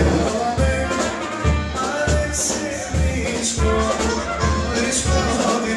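Live dance-band music with trumpet and keyboard over a steady bass beat, a little under two beats a second.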